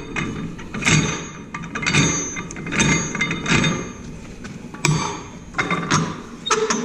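Repeated metallic clinks and knocks, about one a second, as a steel wheel is seated on a wheel balancer's threaded shaft and the quick-release wing nut is spun down and tightened against the centering cone.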